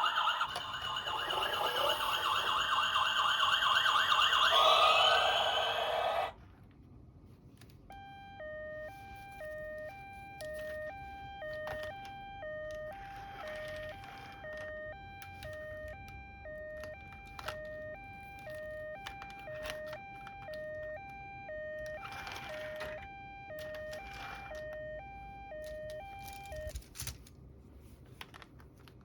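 Electronic toy siren. A loud, dense siren sound rises in pitch and cuts off sharply about six seconds in; after a short pause a quieter two-note hi-lo siren alternates steadily until near the end, with a few brief handling rustles.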